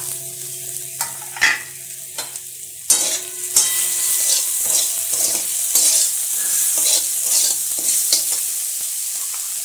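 Chopped onion and capsicum sizzling in hot oil in a kadai while a metal spatula stirs and scrapes the pan. The sizzle grows louder about three seconds in, with a few sharp scrapes of the spatula.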